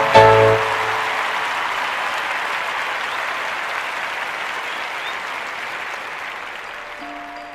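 Audience applauding as the dance music ends on a last chord, the clapping slowly dying away. Near the end a few soft, bell-like mallet notes begin.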